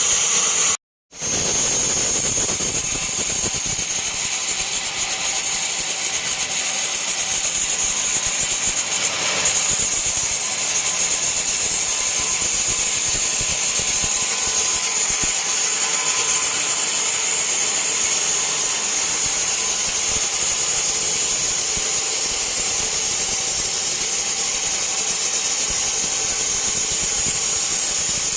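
Band sawmill running steadily as it saws a large teak log, a constant machine noise with a high hiss. It cuts out briefly about a second in.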